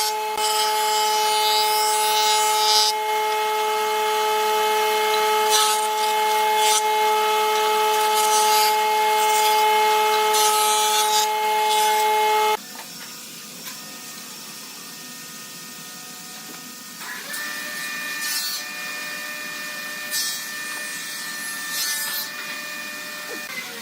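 A power tool with a steady motor whine working wood, with scraping surges as it bites. It stops abruptly about halfway, and a quieter machine hum with a different pitch follows.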